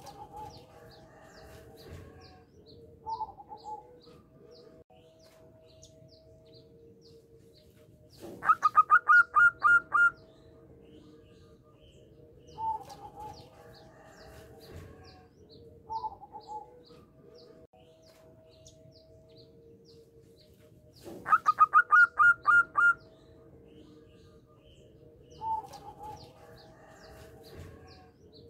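Zebra dove (perkutut) singing: twice, a rapid phrase of about eight quick staccato cooing notes lasting under two seconds, with shorter single calls in between. Faint high chirping of other birds repeats in the background.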